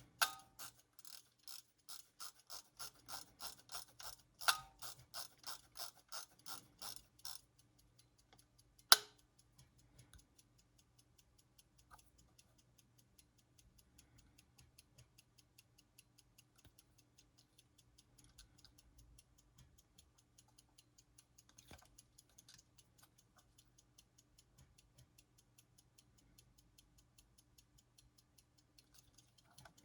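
Soviet AChS-1 aircraft cockpit clock mechanism ticking. For about the first seven seconds a louder, coarser rhythmic clicking runs over the ticking, broken by sharp clicks at the start, about four and a half seconds in and about nine seconds in. After that only faint, fast, steady ticking remains.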